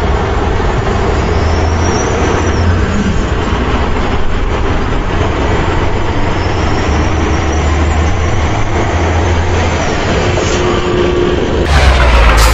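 Truck engine running steadily with a low rumble. Near the end the sound cuts abruptly to a louder, brighter one.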